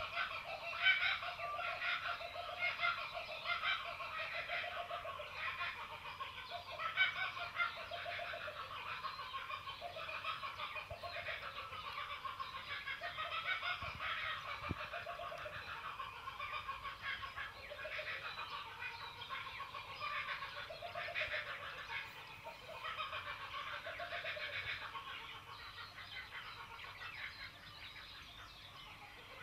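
A continuous chorus of clucking and chattering animal calls, many short calls overlapping, easing off a little near the end.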